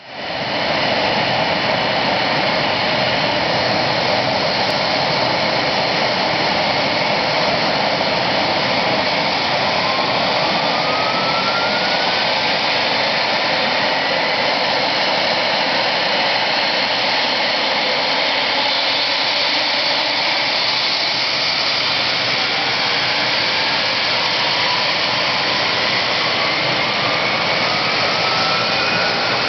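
AgustaWestland AW139 helicopter's twin turboshaft engines running on the ground with the main rotor turning: a loud, steady turbine rush. Faint rising whines come in about ten seconds in and again near the end.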